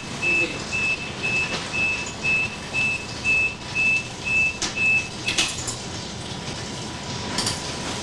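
Hospital monitor beeping steadily, one short high beep about twice a second, stopping about five seconds in; a few sharp clicks follow.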